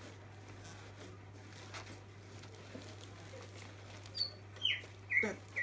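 Faint rustling of shredded paper and bubble wrap as a bubble-wrapped package is lifted out of a cardboard box. About four seconds in, a run of short, sharp chirps starts, each falling in pitch, about two a second, louder than the rustling.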